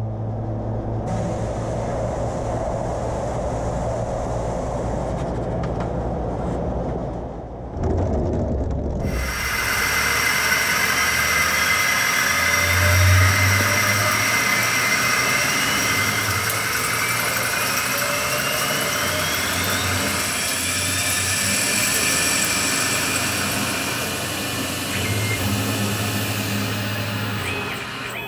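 Tormach CNC lathe running a facing pass on a gear held on an expanding mandrel: steady spindle hum at first, then about eight seconds in a dense hiss of coolant spray and cutting with steady whines and several whines that rise in pitch.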